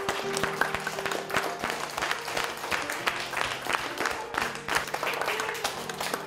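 A class of schoolchildren clapping hands in a round of applause, many quick irregular claps together, with background music playing underneath.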